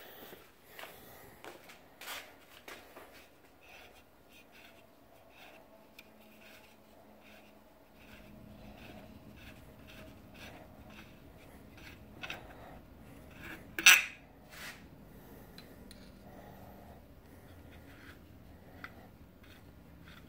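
Shop rag wiping and rubbing the oily cast-iron block of a Dodge 230 flathead six, with scattered small clinks and taps of metal being handled and one sharp tap about two-thirds of the way in.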